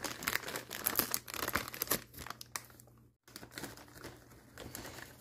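Plastic snack-chip bags crinkling as they are handled: dense crackling for about two seconds, then a brief gap a little after three seconds, then fainter, sparser crinkles.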